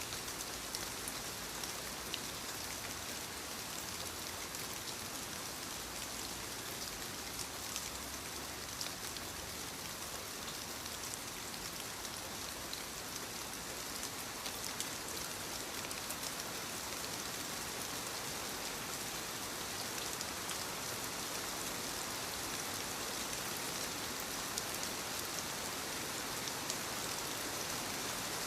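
Steady rainfall, a dense even hiss with scattered individual drops ticking on surfaces.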